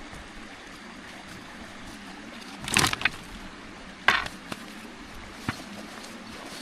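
Steady hiss of outdoor cooking with metal cooking utensils clattering: a cluster of clinks a little under three seconds in, one sharp clink about four seconds in, and a lighter knock near the end.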